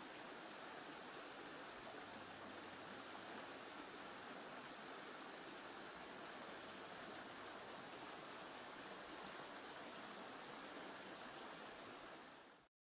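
Shallow stream rushing over rocks: a steady, faint rush of water that fades out near the end.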